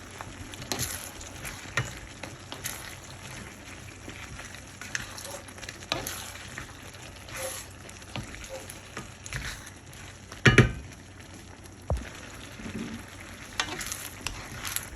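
Beef stir fry with frozen broccoli and cauliflower sizzling in a pan while it is stirred, the utensil scraping and clicking against the pan. About ten seconds in there is one loud knock.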